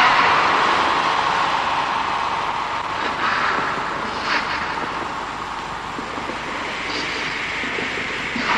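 Film-soundtrack ambience: a steady, wind-like rushing noise, loudest at the start and easing off slowly, with a few faint high whistling glides over it.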